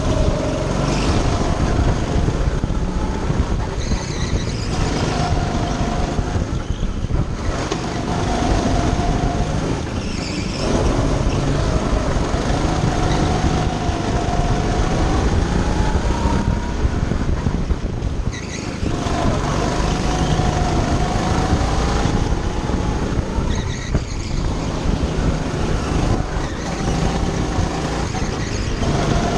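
Go-kart engine heard from on board, running hard down the straights and dipping briefly every few seconds as the throttle is lifted for corners. Wavering squeals of a second or two come through the corners.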